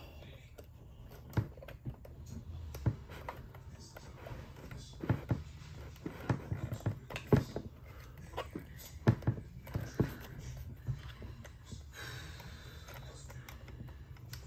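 Irregular plastic clicks and taps as the cassette-player door of a Cricket talking doll is pressed and worked back into its clips, with a steady low hum underneath.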